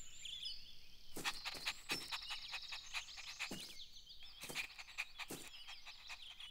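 Garden nature ambience: small birds chirping and twittering throughout, with an irregular run of short, sharp croak-like clicks starting about a second in.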